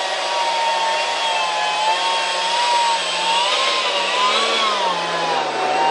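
Electric ducted fan (70 mm EDF) running with a steady whine, its pitch wavering and dipping as the throttle shifts, then settling a little lower near the end.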